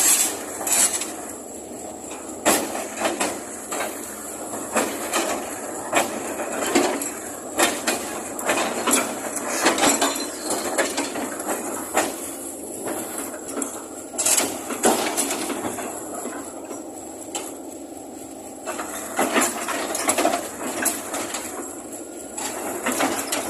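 Hitachi excavator clanking and knocking irregularly, steel-on-metal impacts over a steady running hum with a thin high whine, as it is loaded.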